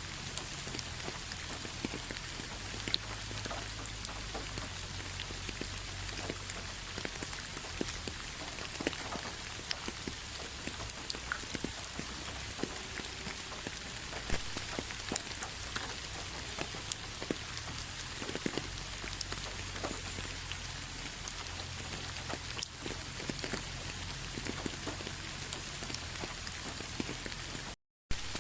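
Steady rain falling: an even hiss with scattered individual drops ticking through it. It cuts out to silence for a fraction of a second near the end, then resumes.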